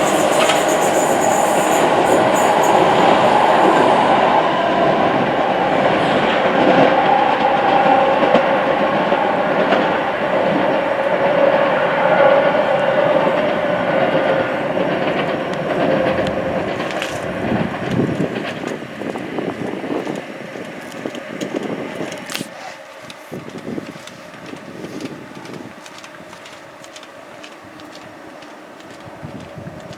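A South Western Railway electric passenger train running past on the tracks: loud wheel-on-rail noise and rumble, with a high-pitched squeal in the first few seconds. It fades away over several seconds from about eighteen seconds in.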